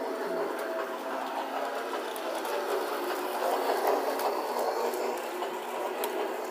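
Small electric motor of a toy Christmas train whirring steadily as the train runs round its track, with a rattle of plastic wheels and scattered clicks at the rail joints. It gets a little louder about four seconds in as the train passes close by.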